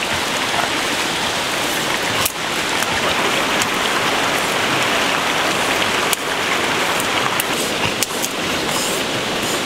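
Steady rush of a flowing stream, with a few brief clicks.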